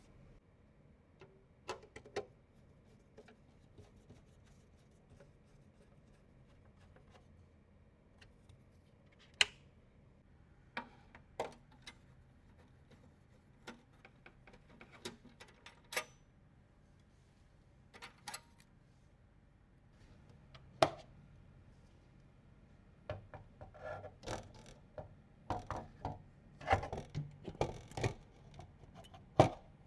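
Sharp clicks and light knocks of computer parts and hardware being handled and fitted during a PC build. They come singly every second or two at first, then in quick clusters over the last several seconds.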